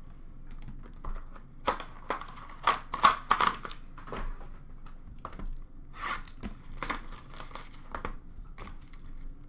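Hands handling trading-card packaging: irregular crinkling and tearing rustles with small clicks, in two clusters, about a second in and again about six seconds in.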